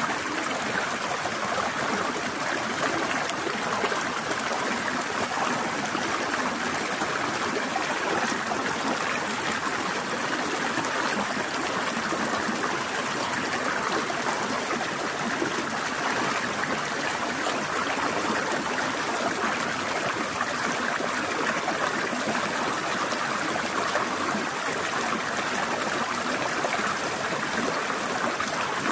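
Forest stream flowing steadily over rocks, an even rushing and trickling of water with no breaks.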